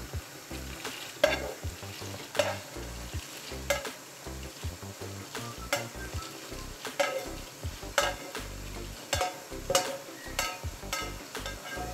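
Plastic spatula scraping freshly toasted hulled pumpkin seeds out of a nonstick frying pan, with the dry rattle of the seeds spilling into a small pot: quick, uneven scrapes and clicks.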